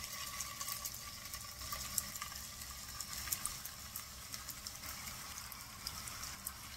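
Raw beef seekh kababs sizzling faintly in shallow hot oil in a frying pan, a soft steady hiss dotted with small crackles and pops.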